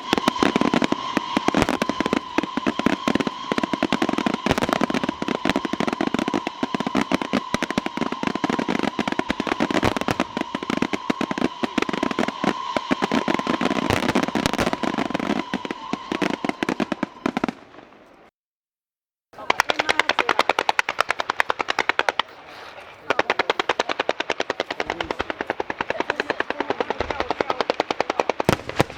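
Fireworks going off in a dense, rapid, continuous string of bangs and pops, with a steady tone running under them for the first two-thirds. About 18 seconds in the sound cuts out completely for a second, then the rapid popping resumes.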